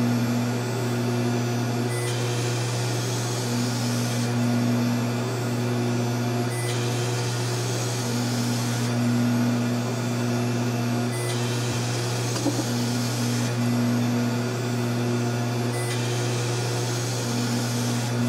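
Taig CNC mill running a cut in foam: the spindle motor hums steadily while the stepper-driven table moves the block back and forth. A higher hiss and whine come and go every two seconds or so as each pass starts and stops.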